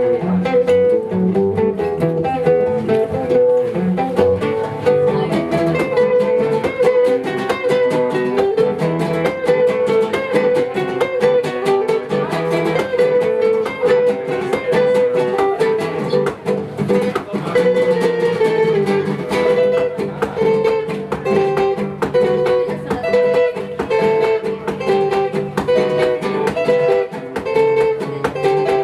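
Instrumental acoustic guitar music: quick plucked notes over strummed chords, with no singing.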